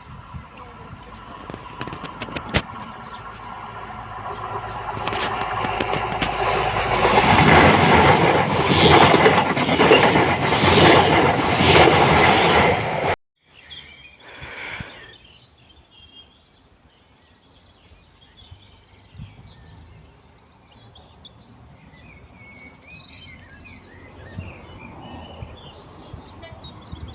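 A train passing close by, growing louder over several seconds and then loud for about six seconds, before the sound cuts off abruptly. Afterwards there is a quieter background with birds chirping.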